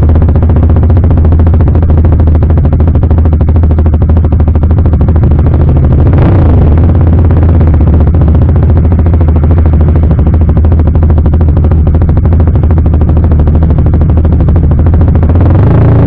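CFMoto 300SR's single-cylinder engine through an Akrapovic full-system exhaust, running at low revs with a steady deep pulse. There is a short rev swell about six seconds in and another at the end.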